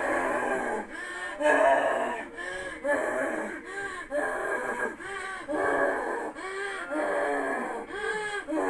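A person's voice moaning and gasping in a steady rhythm, about two cries a second, each one rising and falling in pitch.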